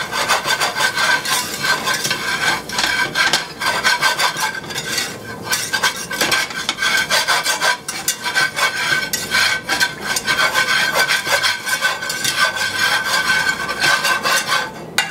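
Wire whisk scraping rapidly and continuously against the bottom of a stainless steel skillet, stirring flour into hot fat and pan drippings to make a roux for gravy.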